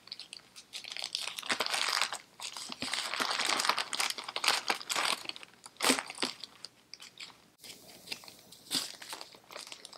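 Small clear plastic zip-lock bags crinkling and rustling as they are handled, loudest in the first few seconds, with one sharp tap about six seconds in and softer crinkling near the end.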